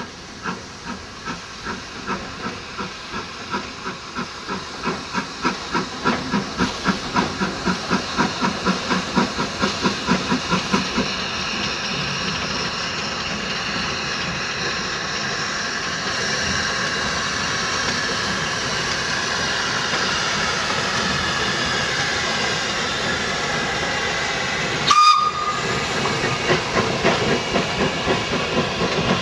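Metre-gauge steam tank locomotive working a train: its exhaust beats grow louder and quicker as it approaches, then give way to a steady hiss of steam and running noise as it passes. About 25 seconds in there is a short whistle toot, then the coaches clatter rhythmically over the rail joints.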